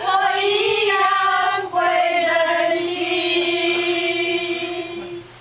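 A group of women singing together in unison, choir-style, moving through a short phrase and then holding one long note that fades out near the end.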